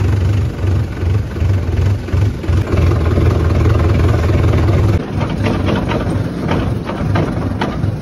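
Sonalika tractor's diesel engine idling with a strong, pulsing low note. About five seconds in the sound changes abruptly: the engine is lower and a run of sharp clicks and knocks comes over it.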